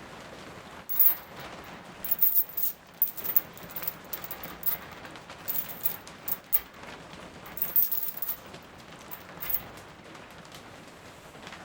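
Steady rain with a run of irregular sharp crackles and clicks close to the microphone, starting about a second in and dying out near the end.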